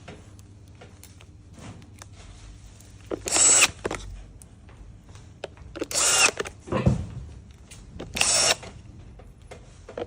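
Power screwdriver driving screws in four short bursts of about half a second each, fastening the screws after a new battery is connected.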